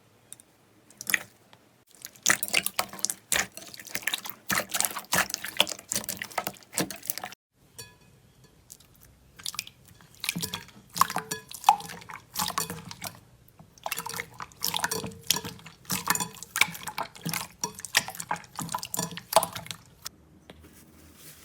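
Slime being squished and pressed by hand, giving dense runs of wet clicks and pops, with a pause of a couple of seconds in the middle.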